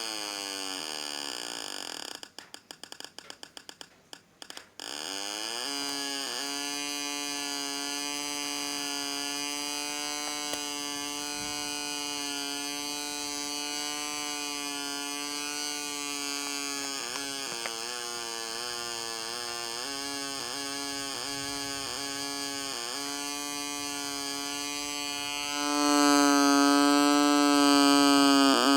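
Homemade two-transistor (S9014/S9015) door-alarm oscillator sounding through a small speaker: a steady, buzzy electronic tone. It stutters rapidly on and off near the start, dips in pitch several times later on, and gets louder near the end.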